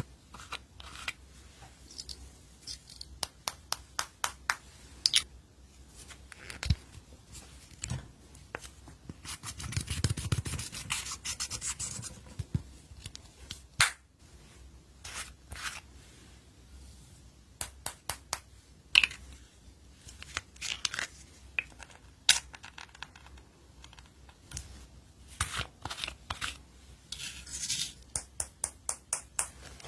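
Glitter slime being worked by hand: runs of quick, sharp sticky clicks and pops, with a stretch of denser rubbing, scratchy noise about ten seconds in.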